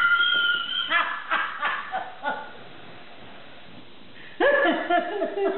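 A person laughing hard: a high-pitched held squeal, then a string of short giggling bursts. After a quieter pause, laughter breaks out again near the end.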